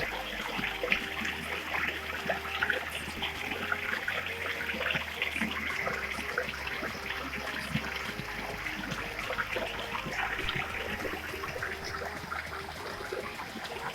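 Flowing water splashing and trickling steadily. Background music with a stepping bassline runs underneath.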